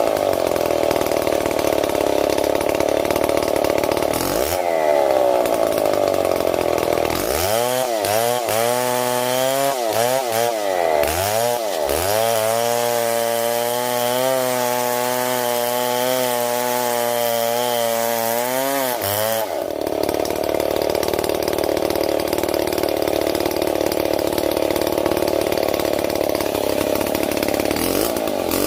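Stihl MS 070 two-stroke chainsaw cutting into wood at high revs. About a third of the way in, its pitch dips and climbs back several times. It then runs clear and steady for several seconds before cutting again near the end.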